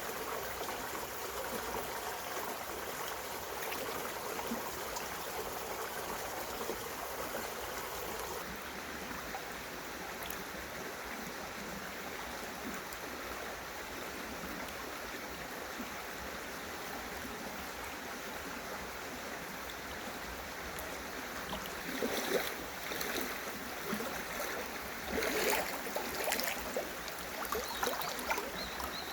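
Mountain stream water running steadily, with a few louder, irregular splashes near the end.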